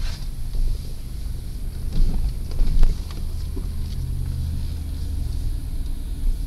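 Car driving slowly, heard from inside the cabin: a steady low engine and road rumble, with a couple of short knocks about two and three seconds in.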